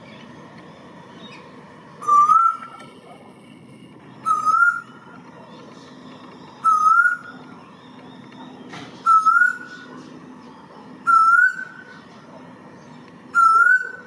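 Male eastern koel (Eudynamys orientalis) calling: six loud whistled notes, each rising in pitch, about half a second long and repeated every two seconds or so.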